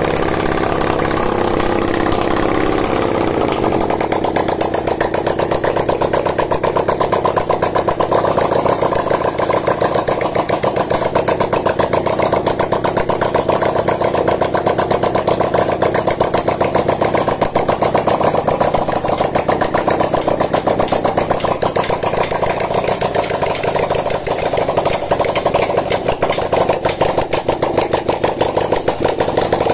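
Homemade 400 cc V-twin engine built from Honda Tiger parts, fed by a single carburettor, running on its first test start with the carburettor not yet tuned. Its speed shifts in the first few seconds, then it runs steadily with a rapid, even firing beat.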